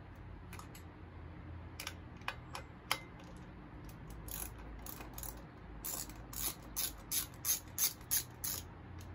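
Ratchet wrench clicking while fitting the S&S air cleaner on a Super E carburetor. There are a few scattered clicks early, then a steady run of about three sharp clicks a second in the second half.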